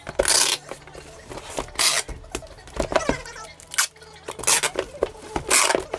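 A shrink-wrapped cardboard box of copy paper being handled and turned on a wooden table: a series of short rustling and scraping noises, about one a second.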